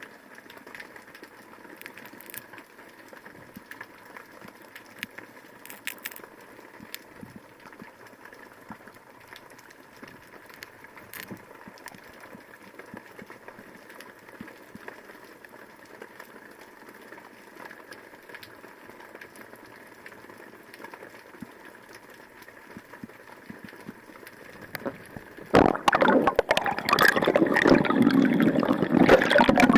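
Muffled underwater sound with faint crackling and scattered clicks, recorded by a camera during a spearfishing dive. About 25 seconds in, loud gurgling and splashing water noise starts close to the microphone.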